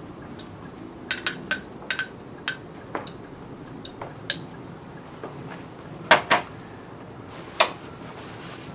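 Metal spoon clinking and tapping against a glass salsa jar and a plate as chunky salsa is spooned out, a series of sharp separate clinks, with the loudest knocks about six seconds in and again near seven and a half seconds.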